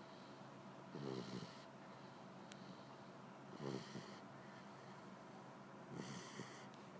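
Pit bull puppy snoring in its sleep: three snores, about two and a half seconds apart.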